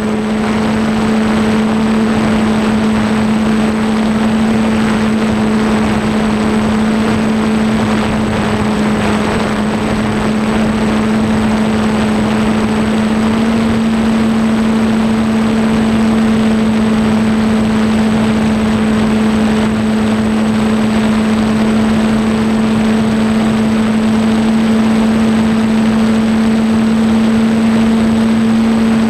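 DJI F550 hexacopter's six motors and propellers running with a steady hum, heard close up from the craft's onboard camera, with wind rushing over the microphone. The pitch steps up slightly about halfway through.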